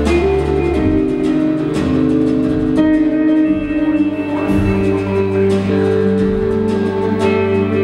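Instrumental music with guitar: held chords that change every second or two, with plucked notes on top.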